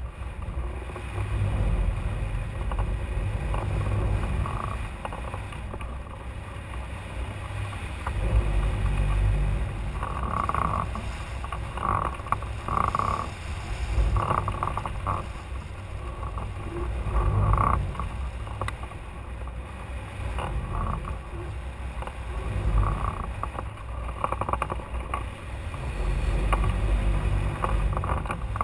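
Airflow buffeting the microphone of a camera mounted on a hang glider in flight: a continuous low rumble that swells and eases every few seconds, with brief higher-pitched patches coming and going through the middle.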